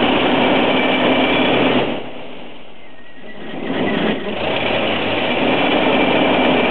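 Fortschritt E 512 combine harvester's diesel engine running steadily close by, going quieter and muffled for about a second and a half in the middle.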